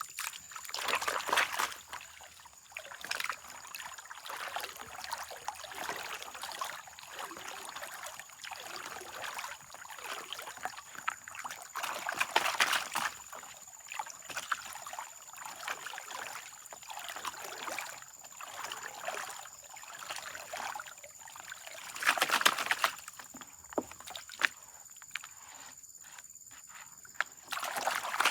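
Water sloshing and trickling in uneven swells, with gritty scraping and many small clicks of sand and gravel being washed, as in gold panning.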